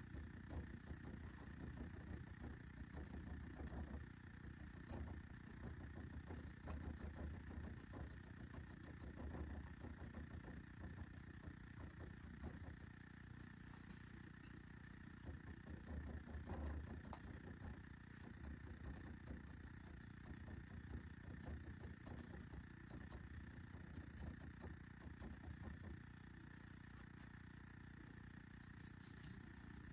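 Faint, steady low mechanical hum with a thin high whine, like machinery running in the room.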